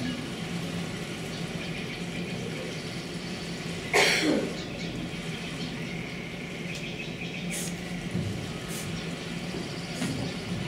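Quiet hall ambience with a steady low hum. About four seconds in comes a brief loud sound whose pitch drops sharply.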